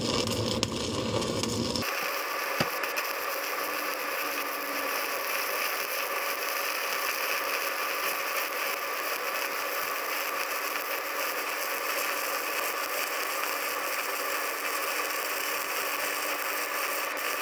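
Stick-welding arc burning a quarter-inch 7018 electrode: a steady crackling hiss that starts about two seconds in, after a brief lower rumble, and holds even.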